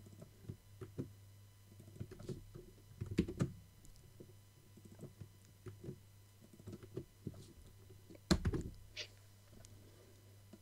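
Typing on a computer keyboard: irregular keystrokes with louder bunches of keys about three seconds and eight seconds in, over a low steady hum.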